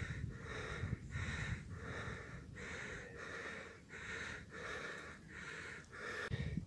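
A person panting hard and steadily, about two breaths a second, out of breath from the ride. Light wind rumble on the microphone at the start and again near the end.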